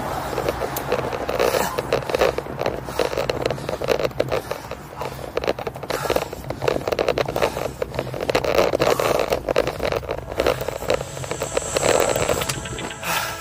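Rough scraping and crackling noise from a bicycle ride picked up on the camera's microphone, full of irregular clicks and rattles.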